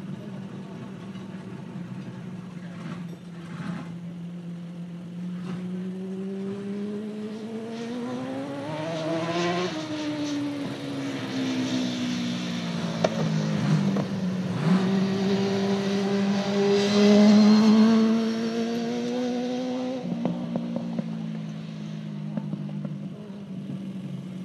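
Dirt-track race car engine lapping the oval, climbing in pitch as it accelerates down a straightaway, dropping sharply as the driver lifts for the turn, then climbing again to its loudest as the car passes close and drives off.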